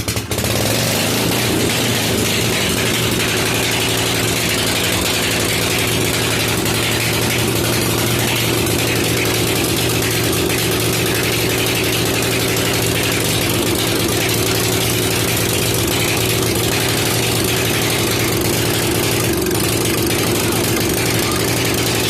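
The newly swapped small engine in a Murray rear-engine riding mower catching right away and running steadily, without a break or change in speed.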